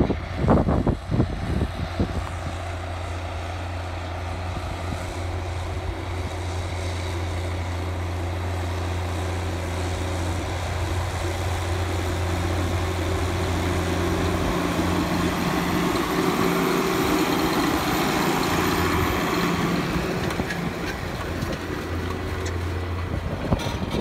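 New Holland T8050 tractor's six-cylinder diesel engine running steadily under load while pulling a disc cultivator through the soil, growing louder as the tractor comes close and passes. A few wind gusts hit the microphone in the first couple of seconds.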